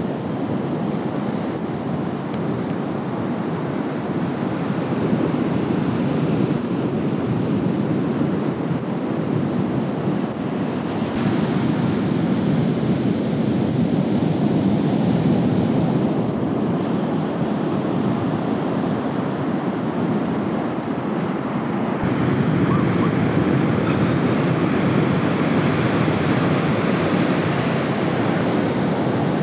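Ocean surf: a continuous rush of waves breaking and washing on the shore, growing brighter about a third of the way in and again near the end.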